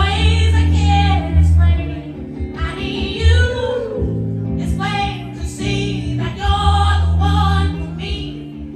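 Live soul song: a man singing lead in a high voice, with drawn-out, wavering notes, over electric guitar, bass and drums.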